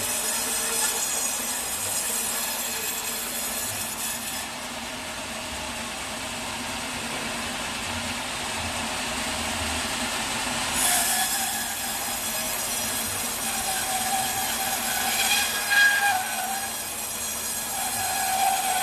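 Sawmill band saw cutting through a log: a steady machine noise with a high hiss that drops away for several seconds, then comes back with a high squeal that rises and falls through the second half.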